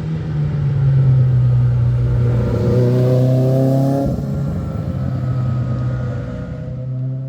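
Rally car engine under hard acceleration, revs climbing, then dropping sharply about four seconds in at a gear change before pulling again. The sound cuts off abruptly at the end.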